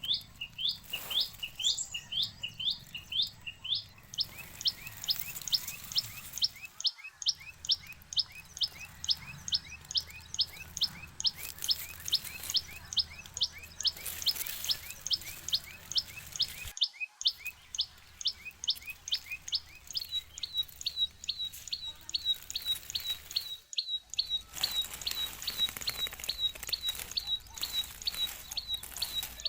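Tailorbirds chirping: a long, even run of sharp chirps, about three a second. It is broken briefly a few times, and from about two-thirds of the way in the notes are shorter and higher.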